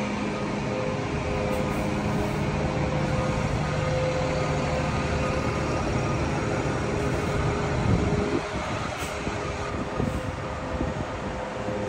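2008 New Flyer D40LF city bus's diesel engine running as the bus turns and drives past, a steady low drone with a hum. About eight seconds in there is a brief louder moment, after which the low engine drone drops as the bus moves away.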